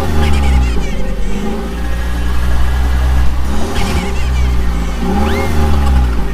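A vehicle engine revving up and down in repeated swells, about every second and a half, over a steady low drone.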